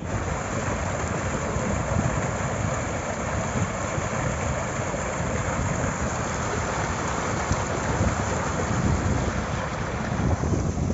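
Water pouring through an open concrete sluice gate as a fishpond is drained, a steady rushing that eases near the end.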